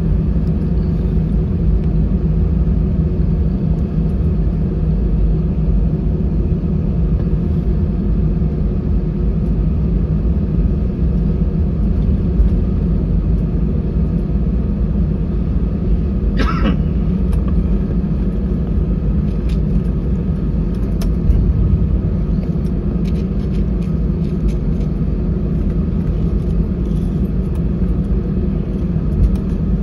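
Steady low rumble and hum inside an Airbus A320-214 cabin on the ground, its CFM56 engines running at idle. A brief sharp sound cuts through about halfway in.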